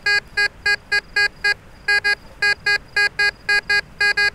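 Tesoro De Leon metal detector giving a rapid string of short, identical beeps, about four a second with one brief pause, as its coil is swept back and forth over a buried target. The signal reads high, 80 to 90, in the silver range.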